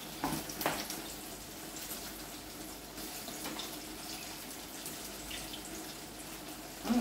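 A pot of broth with tofu and pechay simmering on the stove: a steady bubbling hiss, with a couple of short knocks in the first second.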